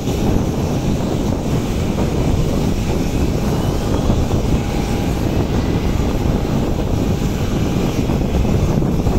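Steady jet-engine noise from a Boeing 737-700's CFM56 turbofans, mixed with wind buffeting the microphone, with a faint whine rising a few seconds in.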